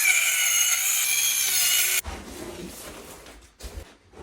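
Power saw cutting through wood subflooring, running steadily with a high whine, then stopping abruptly about two seconds in. Quieter scraping and handling sounds follow.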